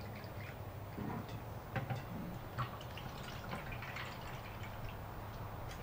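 Mountain Dew Voltage soda being poured into a plastic humidifier base, dripping and trickling, with a few small clicks of plastic being handled.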